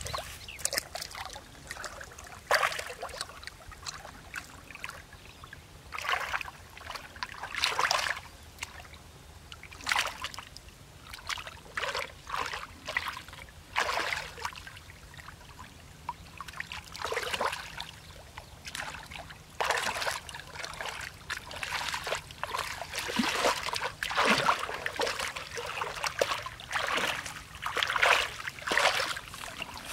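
Feet and hands splashing and sloshing through shallow muddy water, churning it up in irregular bursts every second or two, busier toward the end.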